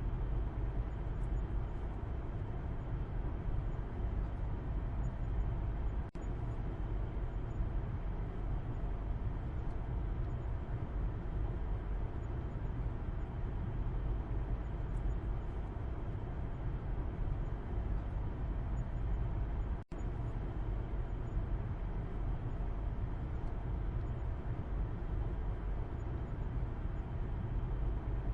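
Steady low rumble of a car's road and engine noise heard from the back seat of the cabin while driving. It cuts out for an instant twice, about six and twenty seconds in.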